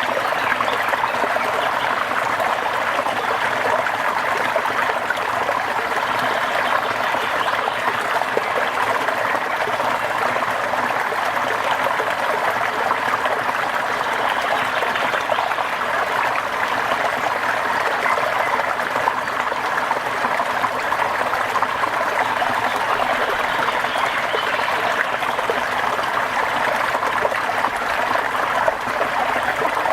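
Steady rushing water, an even hiss with no breaks or changes.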